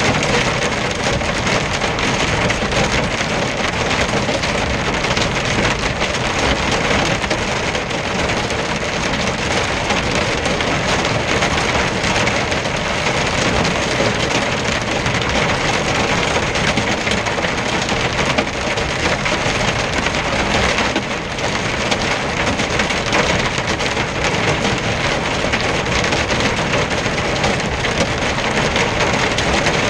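Hail and rain drumming steadily and densely on a truck's windshield and cab, heard from inside the cab while driving through an intense hailstorm.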